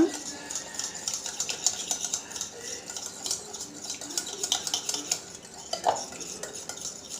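Thick curd being beaten in a bowl: quick, irregular clinking and scraping of the utensil against the bowl.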